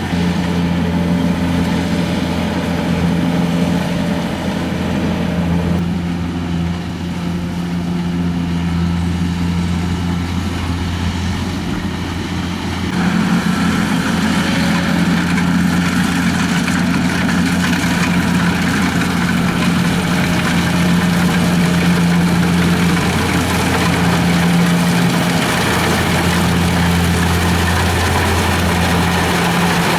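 Kubota DC-70 combine harvester's diesel engine running steadily with a deep, even hum. About thirteen seconds in, a higher rushing noise joins it and stays to the end.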